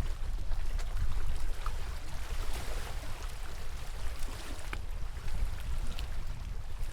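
Lake water lapping and splashing with small irregular ticks, over a constant low rumble of wind on the microphone.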